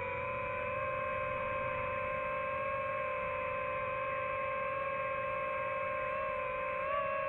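Quadcopter drone's motors and propellers whining at one steady pitch, with a slight rise as the throttle changes near the end.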